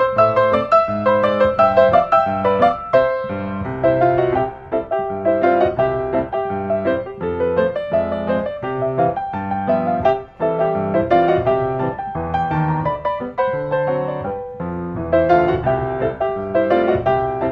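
Background piano music, with notes played in quick succession.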